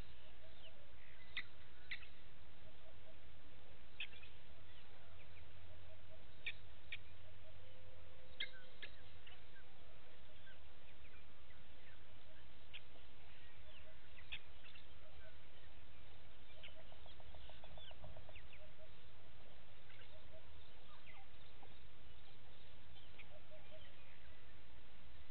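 Birds calling: short, sharp high notes scattered irregularly, sometimes two or three close together, over a low steady rumble.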